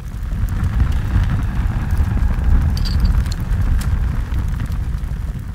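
Fire burning among embers, with a deep low rumble and scattered sharp crackles, swelling up over the first second.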